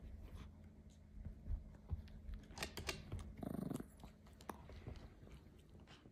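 Yorkshire terrier giving one short vocal sound about halfway through, a brief whine asking for help to get his ball, amid a few faint taps and clicks.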